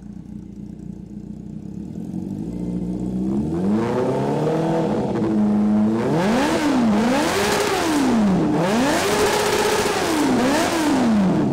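Honda CB400 motorcycle engine through a full aftermarket exhaust system, idling and then revved up and held. It is then blipped up and down several times, loud.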